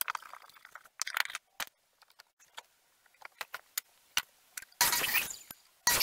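Wooden boards being handled: scattered light knocks and clicks of wood on wood, a short scrape about a second in, and two louder scraping rushes near the end.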